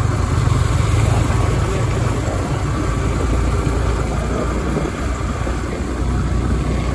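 Motorcycle engine running steadily while riding, under a steady rush of wind and road noise; the engine note drops lower about five seconds in.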